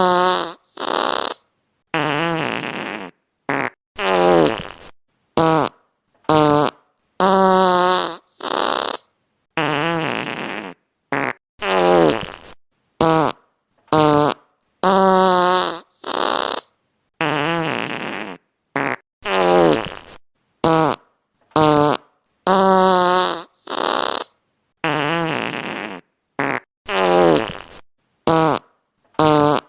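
Fart sound effects played one after another, about one a second, each cut off by silence. Some are long and wavering in pitch, others short and noisy, and several of the same effects recur.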